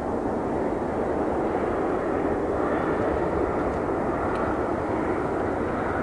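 Boeing 787-8 Dreamliner's jet engines at takeoff thrust: a steady, loud roar as the airliner climbs away.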